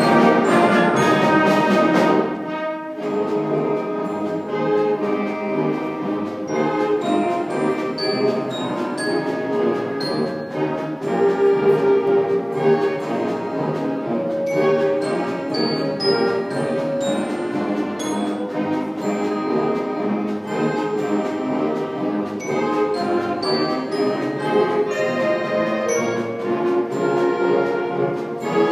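A youth concert band of woodwinds and brass playing. It is loud and full for about the first two seconds, then drops suddenly to a softer, steady ensemble passage.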